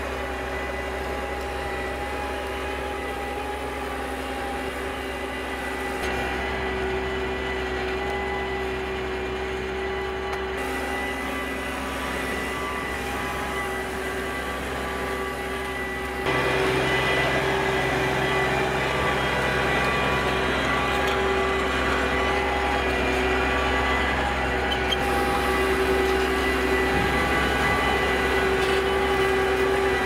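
Case IH Maxxum 140's six-cylinder diesel engine running steadily under load while pulling a drag harrow, with a steady whine over the engine note. It gets noticeably louder about halfway through.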